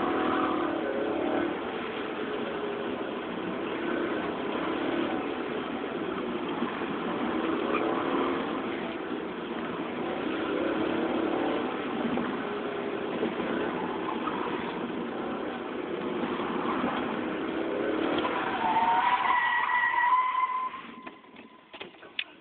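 Car engine heard from inside the cabin, revving up and easing off repeatedly during an autocross run. Near the end the tyres squeal in a rising note, then the engine noise drops away suddenly.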